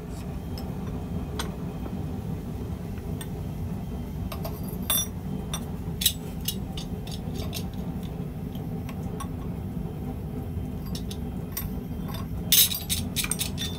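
Scattered light metallic clinks and taps of steel stock and tools being handled, with a quick run of clinks near the end, over a steady low rumble.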